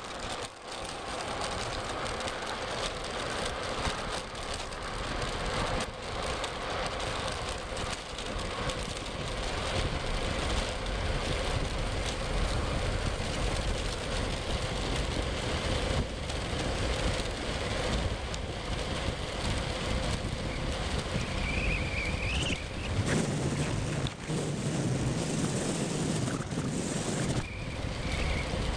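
Wind rushing over the microphone of a camera moving fast and low along an asphalt road, over a steady rumble of wheels rolling on the rough surface.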